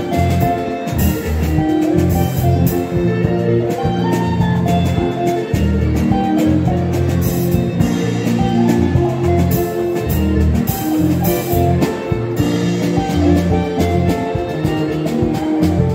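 Live seben (Congolese soukous-style) instrumental: an electric lead guitar plays a solo line over a Yamaha PSR-S970 keyboard and a drum kit, with a strong bass line and steady cymbals.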